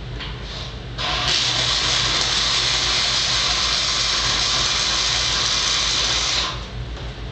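Flux-core arc welding overhead with a 90-amp wire-feed welder, joining a light-gauge steel stud to a steel joist. The arc strikes about a second in, crackles and hisses steadily for about five seconds, then stops abruptly. A steady low hum runs underneath.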